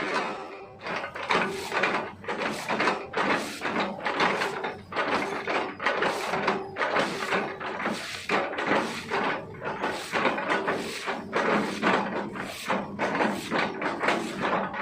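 Excavator bucket chopping felled oil palm trunks: a run of repeated crunching, cracking knocks of wood splitting, about one or two a second, over the steady hum of the machine.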